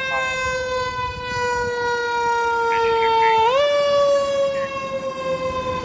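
Fire engine siren wailing as a KME pumper pulls out to respond. The siren holds one steady tone that sags slowly in pitch, is pushed sharply back up about three and a half seconds in, then sags again.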